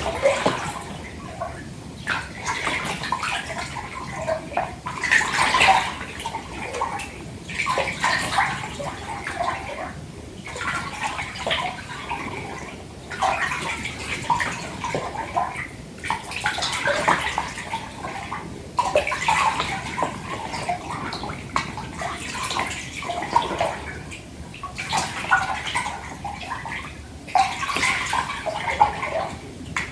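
Bath water sloshing in a filled bathtub, rising and falling in uneven swells every second or two.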